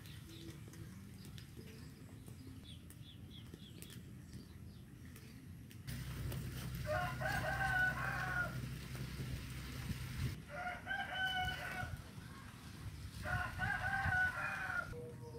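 A rooster crowing three times, each crow lasting a second or so, the first starting about halfway in. Faint small bird chirps come before it.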